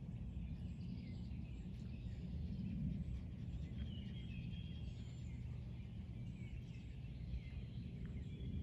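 Outdoor ambience: a steady low rumble with birds chirping now and then, a run of chirps about halfway through.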